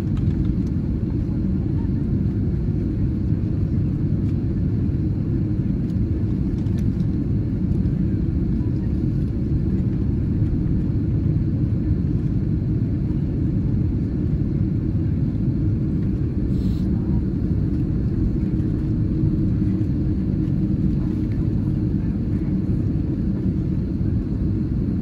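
Steady low rumble inside the cabin of an Airbus A330-300 airliner taxiing on the ground after landing, engines and rolling wheels heard through the fuselage at an even level.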